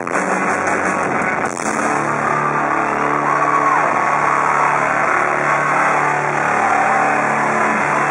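Live rock band ending a song: the drum hits stop about a second and a half in, leaving a held, droning chord that rings on with a rough, distorted wash around it.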